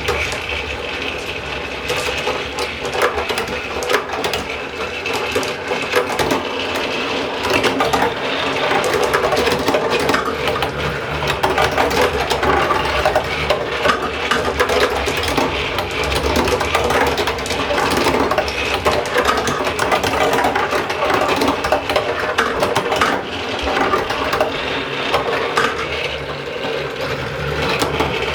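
Marbles clattering and rolling through a plastic marble run with many small clicks, over the steady whir of a battery-powered toy motor.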